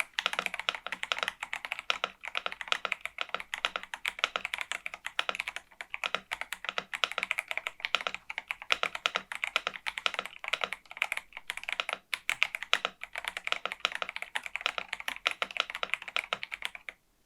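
Typing on a Kzzi K75 Pro 75% gasket-mount mechanical keyboard with Eternity switches and pudding keycaps: a fast, continuous run of keystroke clacks that stops abruptly near the end.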